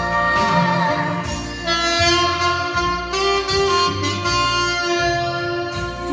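Saxophone playing long held melody notes over a karaoke backing track with bass and drums.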